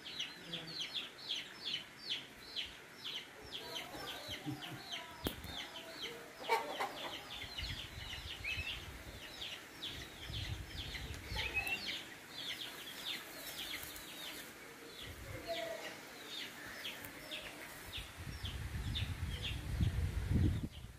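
Chicks peeping without pause in a fast run of short, high, falling peeps, about four a second. A low rumble comes in for a few seconds in the middle and again near the end.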